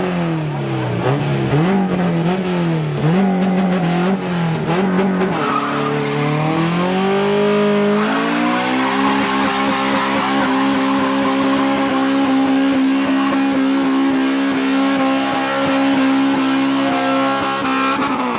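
Car engine revving in quick blips about once a second, then climbing and held at high revs for about ten seconds, with tyres squealing, as in a burnout. The revs drop away at the end.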